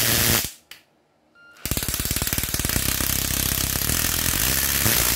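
Small 7.2 V brushed cordless impact driver hammering very fast in two bursts of rapid impacts. The first burst stops about half a second in, and the second starts about a second and a half in and keeps going.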